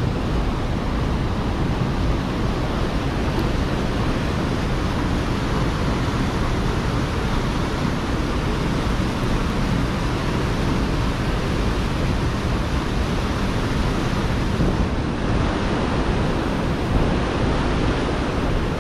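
Whitewater cascade rushing through a narrow granite gorge into a pool: a steady roar of falling water.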